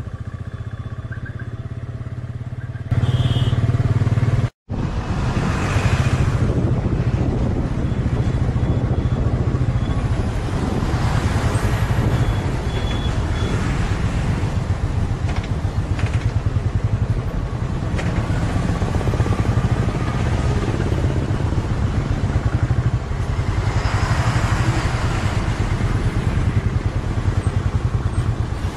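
Motorcycle engine running steadily while riding in traffic, a low throbbing note that gets louder about three seconds in. The sound cuts out for a moment a little later.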